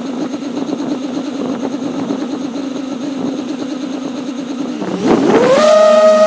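5-inch FPV quadcopter's electric motors humming steadily at low throttle. About five seconds in the pitch sweeps up quickly and the sound gets louder as the throttle is punched.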